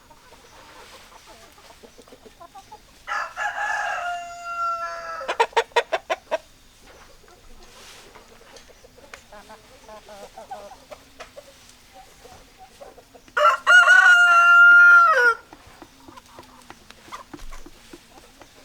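Rooster crowing twice. The first crow, about three seconds in, ends in a quick run of short sharp notes. The second, near fourteen seconds in, is louder and held for about two seconds before dropping in pitch at the end. Hens cluck quietly in between.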